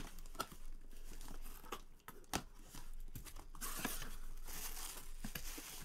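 Cardboard shipping box being opened by hand: packing tape tearing and cardboard flaps crackling and rustling, with a longer tearing rasp about three and a half seconds in.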